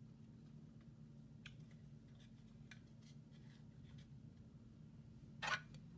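Trading cards being handled, heard faintly as scattered light ticks and rustles over a low steady hum. A louder, brief rustle comes near the end.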